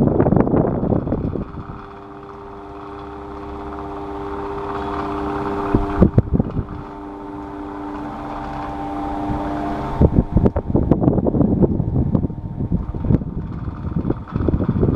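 Electric fan running. A steady motor hum holds through the middle, and a rough, irregular rattling comes at the start, briefly about six seconds in, and again from about ten seconds in.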